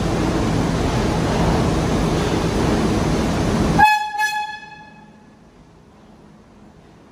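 Steady loud rumble of an R42 subway train coming into the station, then about four seconds in the train's horn gives two short toots that echo away. The rumble cuts off suddenly at the first toot, leaving only faint noise.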